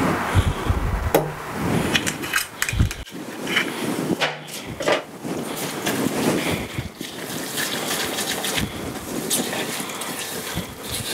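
A spatula stirring and scraping ground spices and olive oil into a paste in a stainless steel cup, with irregular clicks and scrapes against the metal.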